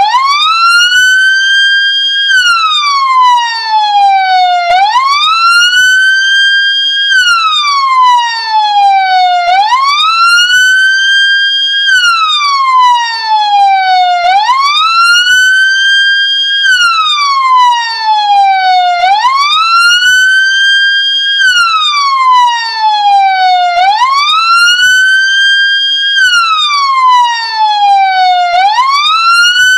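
Ambulance siren wailing. Each cycle rises quickly, holds its top note briefly, then slides slowly back down, and repeats about every five seconds.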